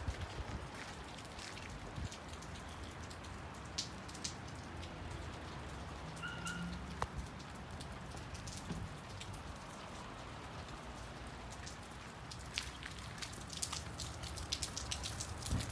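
Steady rain falling, with scattered sharp ticks of single drops landing close by that come more often near the end. A low rumble of wind on the microphone runs underneath.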